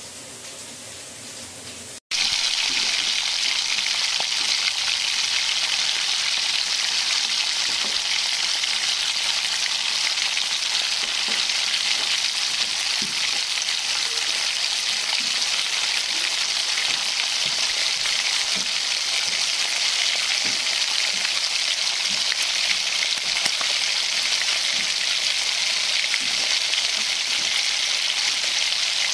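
Hot oil sizzling steadily in a large iron karahi as food deep-fries, with faint ticks of a ladle in the oil. The sizzle starts abruptly about two seconds in, after a quieter stretch with a low hum.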